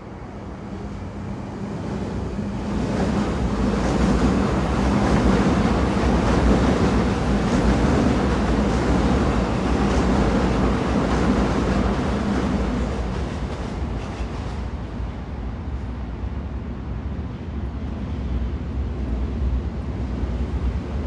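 Train running: a steady rumble and rush of wheels and track with a low hum. It swells louder over the first few seconds, holds, then eases off somewhat.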